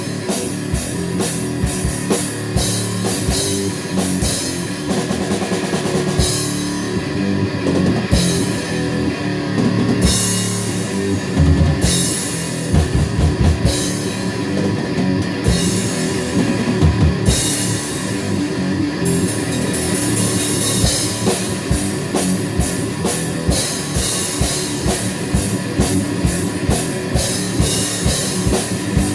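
Heavy rock music with a fast drum kit and distorted guitar. Through the middle, crash cymbals strike about every two seconds.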